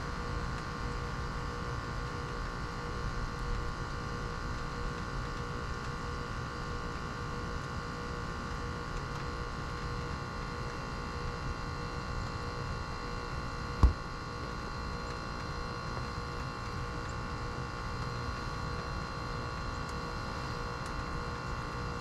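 Lennox Merit heat pump outdoor unit running through its defrost cycle: a steady hum with several held tones. About 14 seconds in there is one sharp knock.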